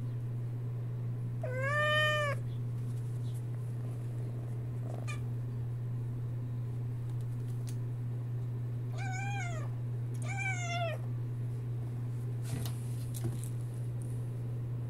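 Sphynx kitten chattering at the window: three short chirping meows, one about two seconds in and two close together near the middle, over a steady low hum.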